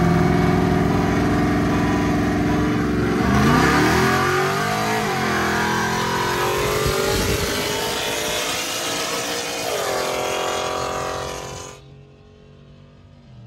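Two Chevrolet Silverado V8 pickups, a 6.2 and a cammed 6.0, accelerating hard side by side, heard from inside one truck's cab. The engine note climbs through the gears, with shifts about four to five seconds in and again near ten seconds. About twelve seconds in it falls away sharply to a quieter cruise.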